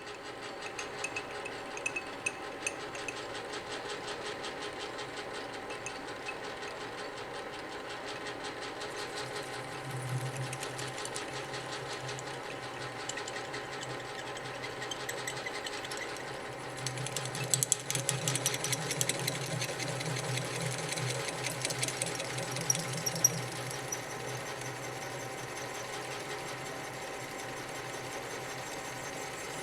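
Lathe running steadily while a drill cuts a side hole in a round workpiece. A louder, denser rattling chatter comes in about halfway through and lasts for several seconds.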